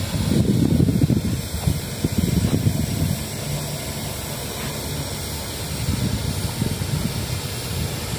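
Low, uneven rumble of wind buffeting the microphone, gusting hardest in the first three seconds and easing after.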